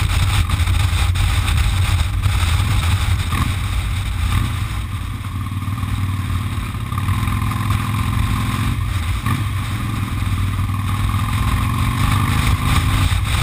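Cruiser motorcycle engine running steadily at road speed, under a heavy low rumble of wind on a microphone mounted on the bike.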